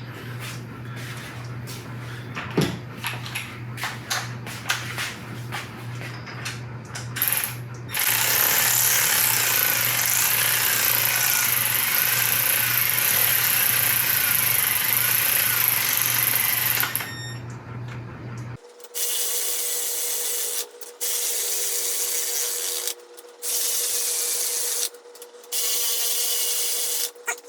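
Light clicks and tool handling, then a handheld power tool runs steadily for about nine seconds. After a short pause it runs in four shorter spurts of about a second and a half each, with a steady whine.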